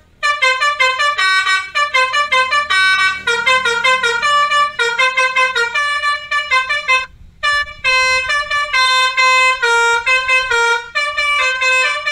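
Electric basuri musical truck horn (60 W, telolet type) playing a fast tune of short notes, several a second, with one brief break about seven seconds in.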